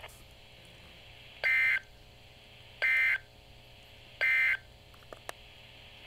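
Three short bursts of digital data tones from a Midland weather radio's speaker, each about a third of a second long and about a second apart: the EAS/SAME end-of-message code that closes a NOAA Weather Radio warning broadcast.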